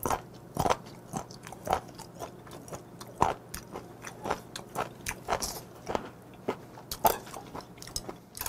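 Close-miked chewing of firm raw whelk sashimi: irregular crisp crunches and wet clicks, about two a second.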